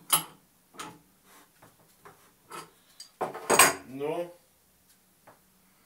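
Sharp metal clinks and knocks from an adjustable wrench working the tap of a small oak barrel, then a louder clatter about three seconds in as the wrench is set down on the countertop.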